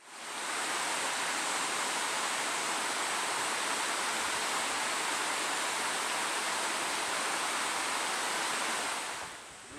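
Waterfall, a steady rush of falling water with no pitch or rhythm, fading in at the start and dropping away near the end.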